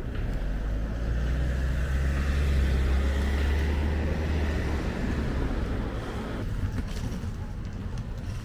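A motor vehicle driving past on the road, its low engine hum and tyre noise swelling to a peak about three seconds in and fading away by about six and a half seconds.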